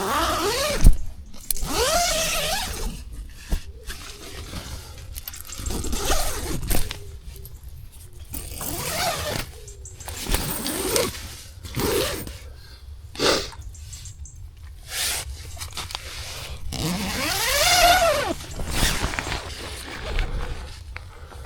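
Nylon tent and sleeping-bag fabric rustling and scraping as someone gets up inside a tent, with several short pitched sweeps that rise and fall.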